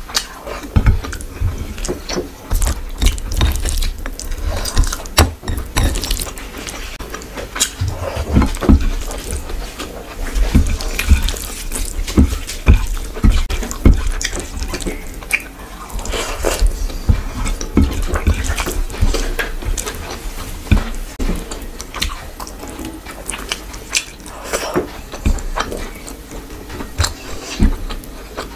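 Close-miked eating sounds: wet chewing and lip smacks, with fingers squishing rice into curry gravy on the plate. Many irregular short clicks and squelches.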